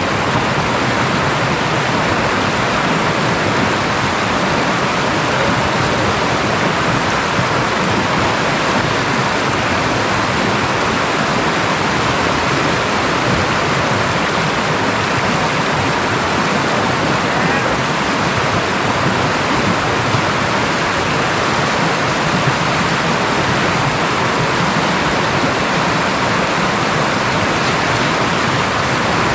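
Rushing river water: a steady, unbroken rush with no change throughout.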